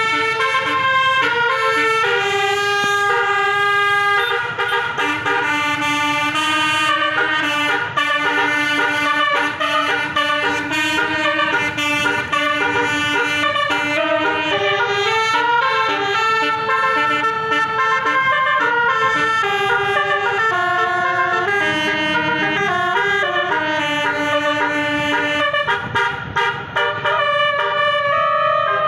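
Tour bus's telolet basuri musical horn playing a long melody, its pitched notes stepping up and down with several sounding at once, without a pause.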